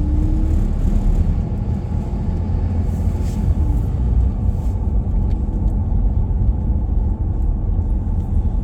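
Steady low rumble of a vehicle driving slowly on a snow- and ice-covered road, heard from inside the cab: engine and tyre noise.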